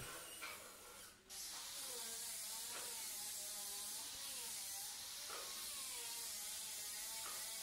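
Corded electric hand drill boring into plywood, starting about a second in; its motor pitch sags and recovers several times as the bit bites, over a steady high hiss.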